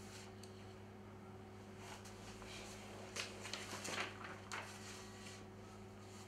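Quiet room tone with a steady low hum, broken by a few faint short noises in the middle.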